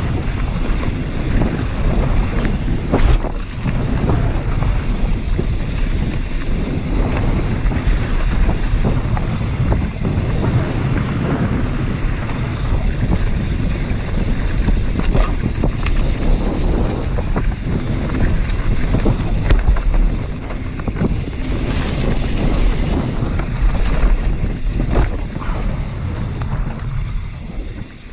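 Mountain bike running fast down a dirt trail, heard through a GoPro Hero5 Black's microphone: steady wind rush on the mic over tyre noise on the dirt, with frequent knocks and rattles from the bike over bumps.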